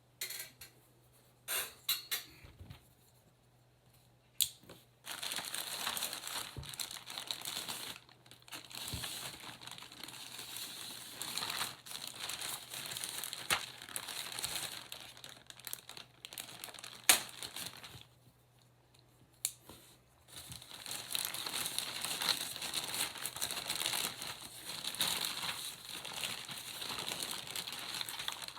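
Plastic packaging crinkling and rustling as it is handled and opened, in two long stretches with a short pause past the middle. A few separate clicks come near the start.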